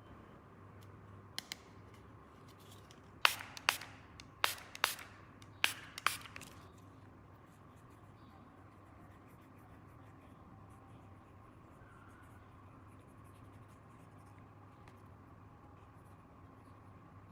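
Small plastic toy pieces being handled: about three pairs of sharp clicks a few seconds in, as if parts are snapped or set down, then only faint handling noise over a low steady hum.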